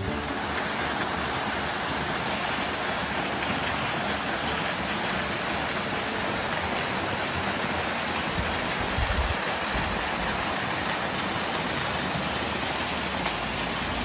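Waterfall: water pouring down a rock face into a pool, making a steady, even rush.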